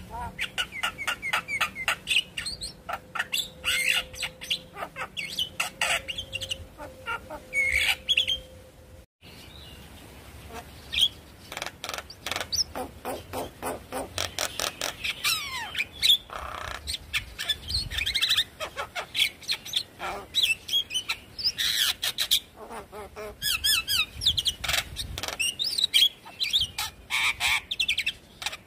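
Javan myna (jalak kebo) singing a fast chattering song of sharp clicks, harsh notes and short whistles. The song breaks off briefly about nine seconds in, then carries on.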